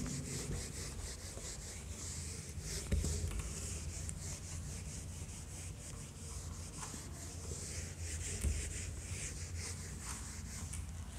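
A whiteboard duster rubbing across a whiteboard in repeated quick back-and-forth strokes, erasing the board.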